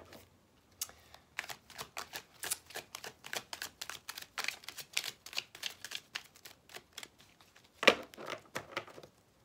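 A deck of oracle cards being shuffled by hand, with quick irregular clicks and slaps of card edges and one louder snap near the end.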